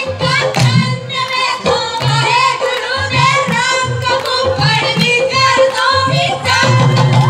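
Women's voices singing a Punjabi folk boli for a giddha dance, amplified through a PA system, over a repeating low drum beat and sharp hand-claps.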